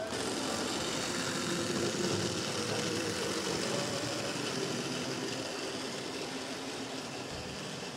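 HO scale model trains running on layout track: a steady rolling rattle of metal wheels on the rails with the whir of the locomotive motors, slightly louder in the first couple of seconds and easing off toward the end.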